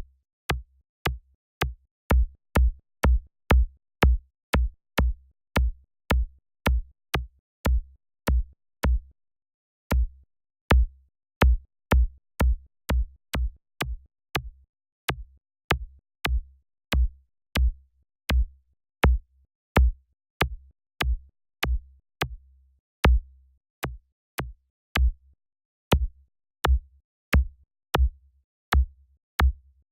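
Synthesized electronic kick drum triggered over and over, two to three hits a second with a few longer pauses. Each hit is a sharp click followed by a short, deep low thump.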